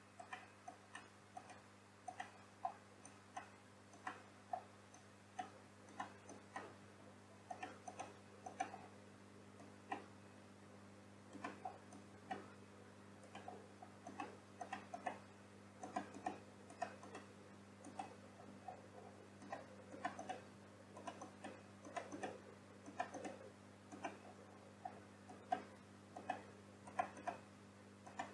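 Faint, irregular clicking of a computer mouse and keyboard: button clicks, scroll-wheel notches and single key presses, a few a second, over a steady low hum.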